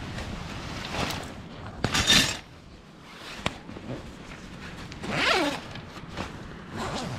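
Zip and nylon fabric of an Osprey rucksack being opened and handled: several quick zip pulls and rustles, the loudest about two seconds in, with a few sharp clicks.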